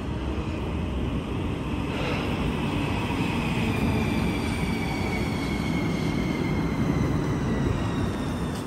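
Helsinki Metro M300 electric train pulling into the platform: a steady rumble of wheels on rails, with several high whining tones that fall slowly in pitch as the train slows.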